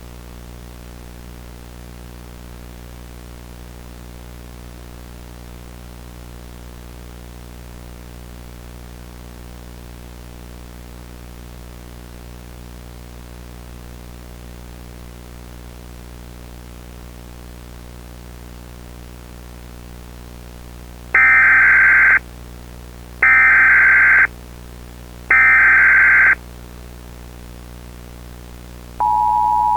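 A steady low hum, then three one-second bursts of Emergency Alert System header data tones about two seconds apart, followed near the end by the start of the steady two-tone EAS attention signal.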